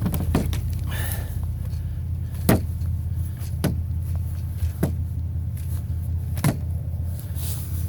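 A steady low motor hum, like an idling vehicle, runs throughout. Over it come about five sharp clicks and knocks of scrap parts being handled, spaced one to two seconds apart.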